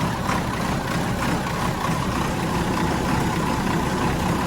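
Old Volvo Penta mechanical marine diesel engines idling steadily, just after their first cold start after a long winter.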